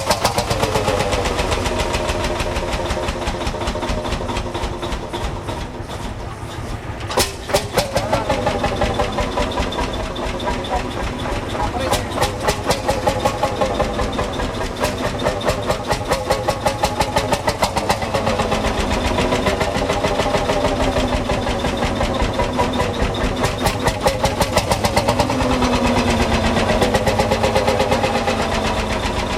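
Old farm tractor engine running with a rapid, even beat of exhaust pulses, picking up briefly about seven seconds in. Voices can be heard behind it.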